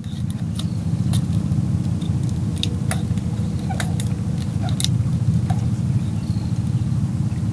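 Small boat engine running steadily at idle, with a fast, even low pulse. A few light clicks sound on top of it.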